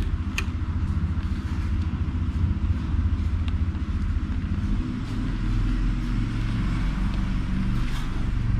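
A steady low engine rumble with a fine, rapid pulse, shifting in pitch about five seconds in, with a few faint clicks over it.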